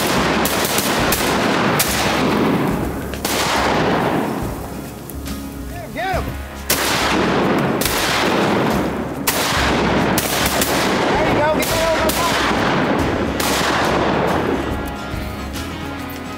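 Repeated shotgun blasts from several hunters firing at ducks, a dozen or so shots in quick, overlapping volleys. Each shot trails a long echo.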